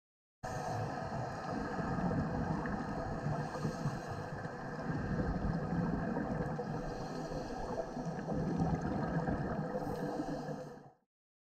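Underwater ambient noise picked up by the camera: a steady low rumble with faint steady tones above it. It starts just after the beginning and cuts off abruptly near the end.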